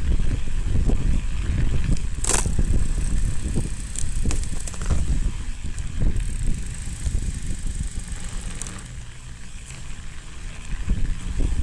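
Mountain bike riding over snow, heard through a camera mounted on the bike: a continuous low rumble of tyres and frame with sharp knocks and rattles, the loudest about two seconds in, easing off a little around nine to ten seconds.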